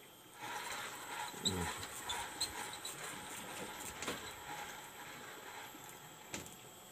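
Spinning reel being cranked to wind in line with a hooked fish: a steady whirring rattle of the reel with scattered clicks, getting quieter near the end.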